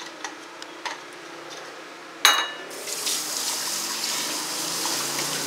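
Kitchen tap running into a stainless steel sink while food processor parts are rinsed under it. A sharp clatter comes about two seconds in, just before the water starts, with a few light knocks before it.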